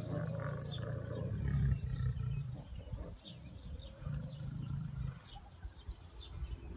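Lions growling in a low rumble while play-fighting: one long growl over the first two and a half seconds, and another shorter one about four seconds in. Birds chirp faintly now and then.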